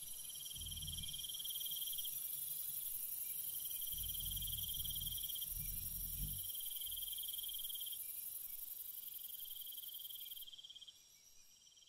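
Chorus of insects: a steady high buzz with a shriller trill that repeats in runs of about a second and a half, fading about ten and a half seconds in. Two spells of low rumble come under it, one near the start and a longer one from about four to six seconds.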